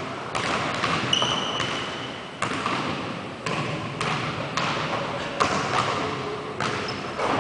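Basketball bouncing on a hardwood gym floor: irregular thuds roughly every half second to a second, each ringing out in the hall's echo. A brief high squeak about a second in.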